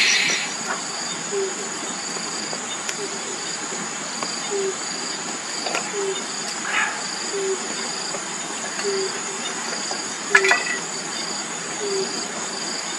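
Evening insects chirring: a steady high buzz and a pulsing trill, with a low chirp repeating about every three quarters of a second. Over this, a wood campfire gives a few sharp crackles and pops, the loudest about ten seconds in.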